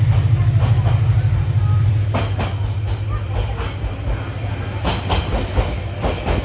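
Baekdudaegan Canyon Train (V-train) running along the track, heard from inside a passenger car: a steady low rumble that eases after about two seconds, with a few clicks of the wheels over rail joints.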